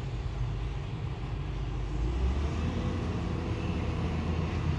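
Excavator engine running steadily with a low rumble that shifts and grows slightly louder about two seconds in.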